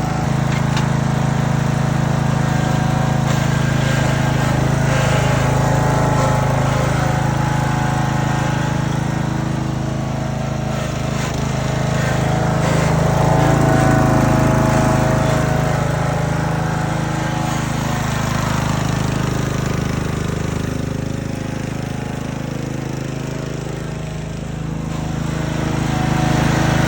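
Husqvarna Z4819 zero-turn mower's Briggs & Stratton Intech 20 hp engine running steadily, its loudness swelling and easing slowly. It runs a little ticky, which the owner puts down to valve lash needing adjustment.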